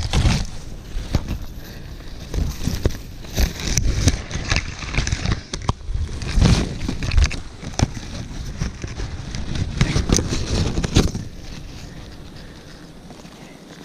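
Irregular rustling, crackling and knocking of people handling a heavy load and moving through brush, with many sharp knocks. It eases off over the last couple of seconds.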